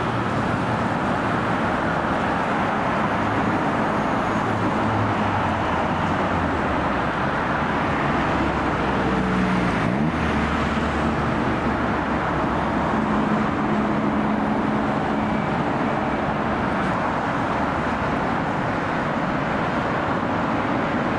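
Steady road traffic noise, with motor vehicle engines running.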